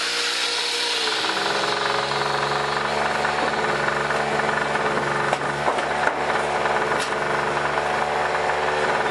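Harbor Freight 800-watt generator's 63cc two-stroke engine running steadily. About a second in, the angle grinder plugged into it switches off and winds down with a falling whine, leaving the engine's drone. A few light knocks come near the middle.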